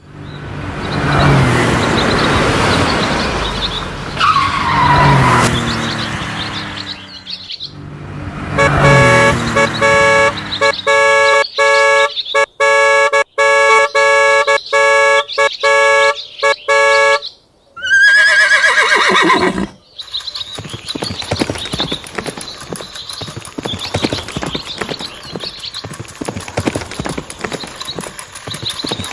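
A run of toy-vehicle and horse sounds: engine-like revving that glides up and down, then a steady horn-like tone that cuts in and out for several seconds. A short falling whinny follows, and after it quick, even clip-clop of hooves.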